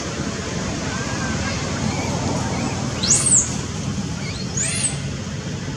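Baby macaque giving two high-pitched cries that rise and fall, about three seconds in and again a second and a half later, over a steady background murmur.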